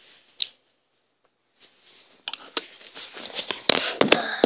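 Handling noise from a handheld camera being moved about: one click, a second or so of near quiet, then a run of taps, clicks and rustles, the sharpest few near the end.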